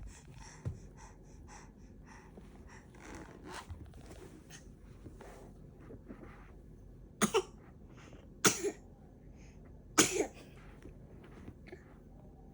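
A seven-month-old baby sneezing three times, about a second and a half apart, each sneeze a quick double burst.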